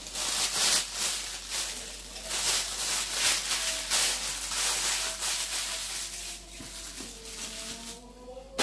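Plastic bags and snack packaging rustling and crinkling as they are handled, in irregular crackly bursts.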